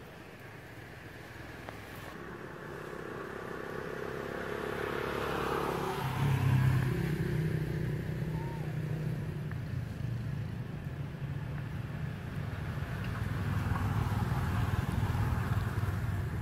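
Motor vehicle engine approaching, then running with a steady low drone from about six seconds in.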